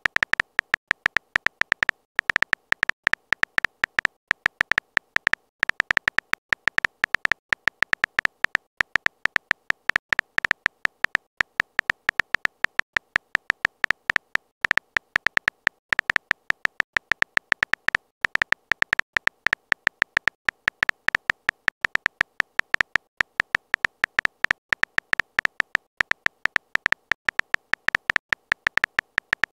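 Text-message app typing sound effect: a rapid, uneven stream of short electronic key-tap clicks, one per typed letter, each with a high beep-like tone, several a second with brief pauses between bursts.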